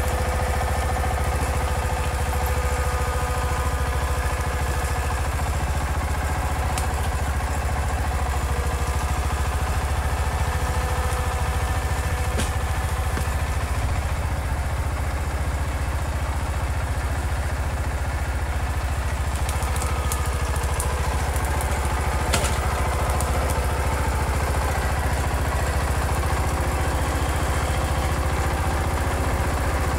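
Garden tractor engine running steadily, with a few sharp clicks and clatters over it.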